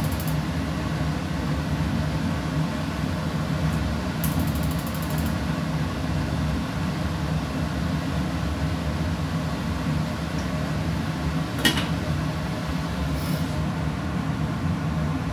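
Kitchen range hood fan running with a steady low hum. About four seconds in comes a second-long run of rapid ticking, typical of a gas burner's igniter clicking, and a single sharp click near the end.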